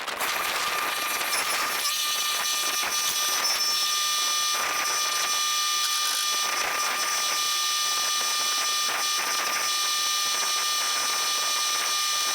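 Combine harvester running steadily: an even machine whine with several high steady tones over a noise haze, and little low rumble.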